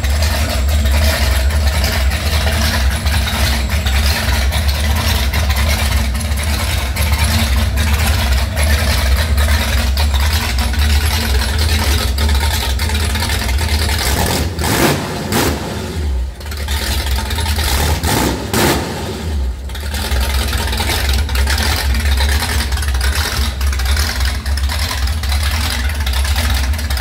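Freshly rebuilt Ford 390 FE big-block V8 running steadily with a deep, pulsing exhaust note, revved briefly twice about halfway through.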